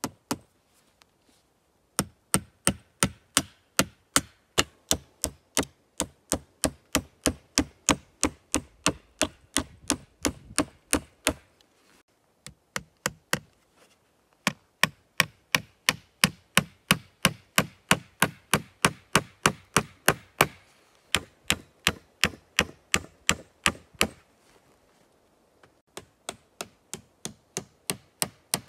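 Nails being driven into split birch poles with the back of a hatchet: quick runs of steady blows, about three a second, with short pauses between the runs.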